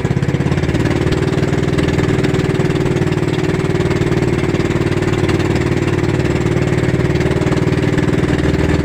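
Engine of a motorized outrigger fishing boat running steadily under way, with a fast, even pulse.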